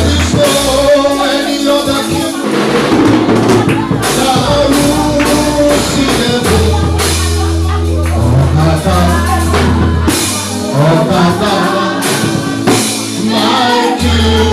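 Gospel praise music with a band: held bass notes, a steady drum beat and a sung melody.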